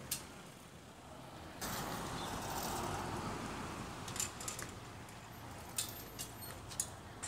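Outdoor street ambience: a steady hiss of background noise with a few light clicks. The background gets abruptly louder about one and a half seconds in.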